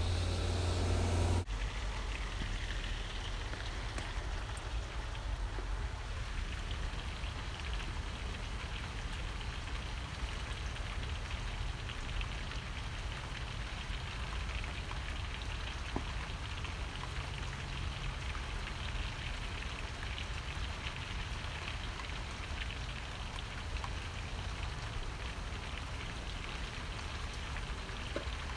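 Steady crackling hiss over a low hum, with no distinct knocks or other separate sounds.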